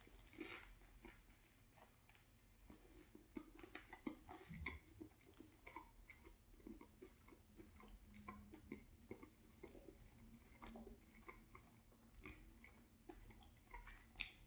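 Quiet chewing of a mouthful of chicken, cheese and vegetable sub sandwich: soft, irregular mouth clicks that start about two seconds in.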